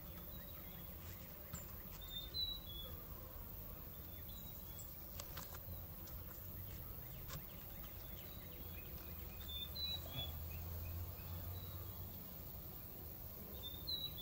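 Low hum of honeybees at an open hive, with a bird chirping briefly every few seconds and a few faint clicks from the wooden frames being handled.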